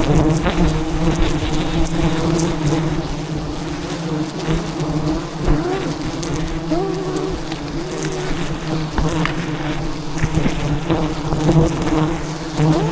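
A swarm of wild giant honey bees (Apis dorsata) buzzing around their hive: a loud, steady drone with single bees whining past, their pitch rising and falling.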